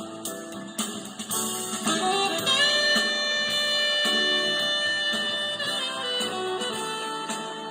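Instrumental music played back through a Matsushita 16 cm full-range speaker, the EAS-16PL33SS. About two and a half seconds in, a single note is held for roughly three seconds over the accompaniment.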